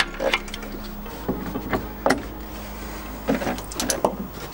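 Irregular clicks and light knocks of a hand tool and plastic and metal parts being handled around a car battery and its terminal clamps, about half a dozen spread through a few seconds.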